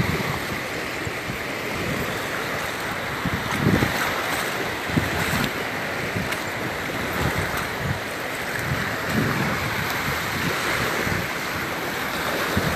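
Gulf of Mexico surf washing steadily onto the beach, with wind buffeting the microphone in low gusts.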